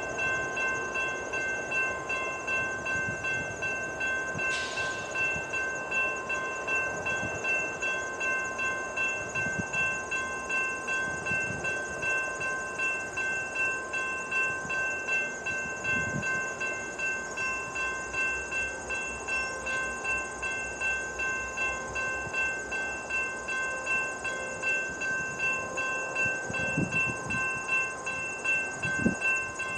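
Railroad crossing warning bell ringing over and over in a quick, even rhythm: the crossing signals are activated for an approaching train.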